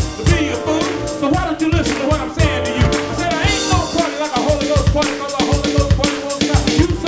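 Upbeat gospel band music: a drum kit keeps a steady beat with kick and snare under held keyboard chords, with some singing.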